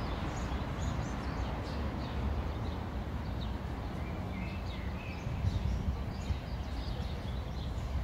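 Outdoor ambience: small birds chirping repeatedly over a steady low rumble of background noise.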